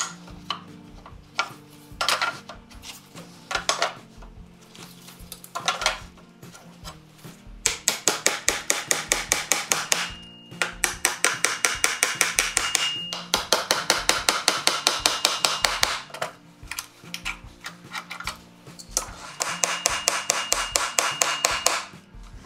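Claw hammer nailing new wooden cleats onto an old wagon tailgate board laid over an anvil. It starts with a few separate blows, then three long runs of quick, light strikes, about seven a second.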